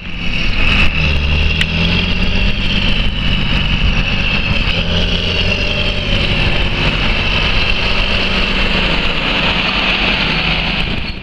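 John Deere 8520 tractor's diesel engine running steadily as it drives past pulling a Horsch seed drill: a low engine drone with a strong, steady high whine over it. The sound starts and ends abruptly.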